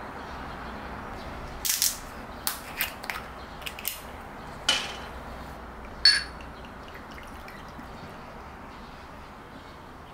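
A run of sharp clicks as the screw cap is twisted off a glass soju bottle, then about four seconds later one loud ringing clink of glass on glass as soju is poured into a small shot glass.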